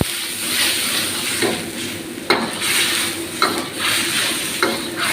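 Vegetables stir-frying in a hot pan with a steady sizzle. A spatula scrapes and knocks against the pan about once a second as the food is tossed.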